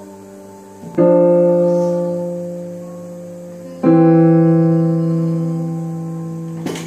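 Piano chords played slowly by a child: two chords struck about three seconds apart, each held and left to ring and fade. A short sharp click near the end.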